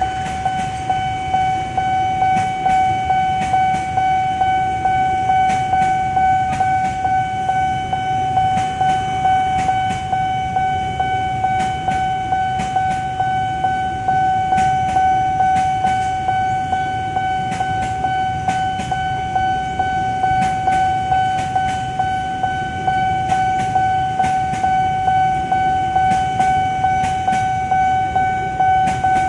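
Nippon Signal electronic level-crossing bell ringing: a single-pitched ding repeating in quick, even strokes without a break. Under it a train passes, with a low rumble and scattered wheel clacks.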